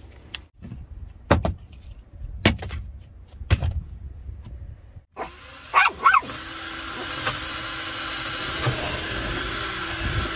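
A dog barks a few times, about a second apart. Then a Ryobi cordless drill runs steadily for about four seconds, boring a hole through a plywood board, and stops right at the end.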